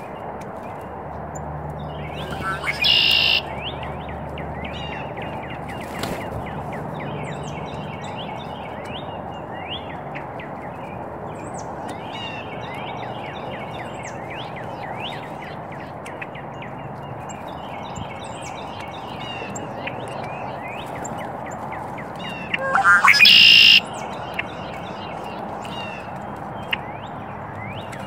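Small birds chirping and twittering over steady outdoor background noise. Two much louder, brief sounds stand out, one about three seconds in and another about twenty-three seconds in.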